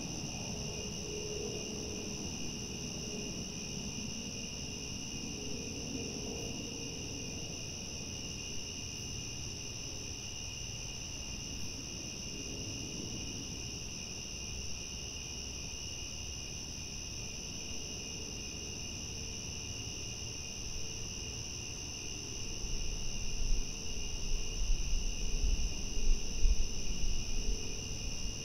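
Crickets chirping at night in a continuous high-pitched trill that holds steady throughout. Near the end an uneven low rumble comes in and becomes the loudest sound.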